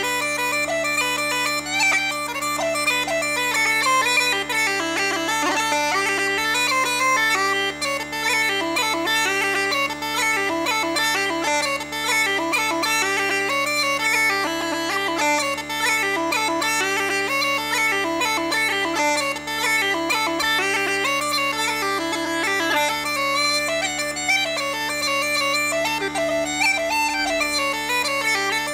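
Uilleann pipes played solo: a quick-moving chanter melody over steady, unbroken drones.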